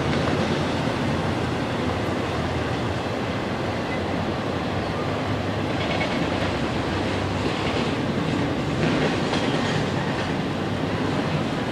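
CSX freight train's cars rolling past on the rails, a steady noise of wheels on track.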